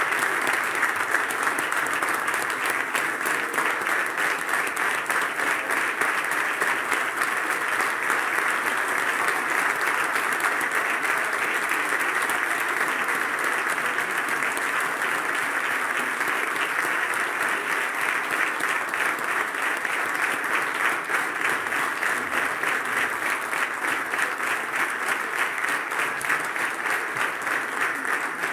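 Concert audience applauding steadily: a dense, continuous patter of many hands clapping.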